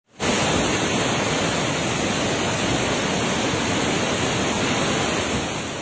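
Floodwater of the Kosi River rushing through the open gates of the Kosi barrage: a steady, loud rush of turbulent water that eases slightly near the end.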